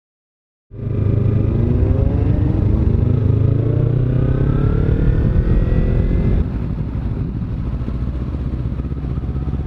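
Kawasaki Z300 parallel-twin engine accelerating, its pitch rising steadily through the gear, heard from the rider's helmet camera. The sound cuts in abruptly just under a second in, and about six seconds in the level drops suddenly and the rising tone stops.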